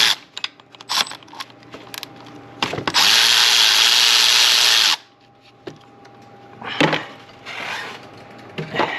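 A power driver running for about two seconds, starting about three seconds in and stopping abruptly, as it backs out a valve cover bolt; light clicks and knocks of tool and parts handling around it.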